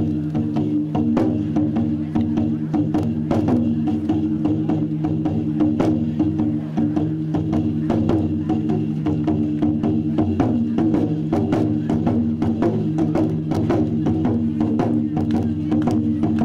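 Music: a steady low drone under quick, dense percussion strikes several times a second.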